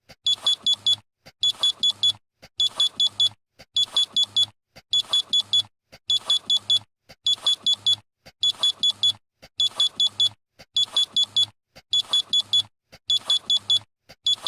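Electronic alarm beeping: a high-pitched tone sounded in bursts of four quick beeps, repeating about once a second without change.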